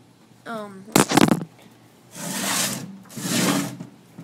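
Handling noise from a desktop computer case being moved: a loud knock with a short rattle about a second in, then two scraping rushes of noise, and a click near the end.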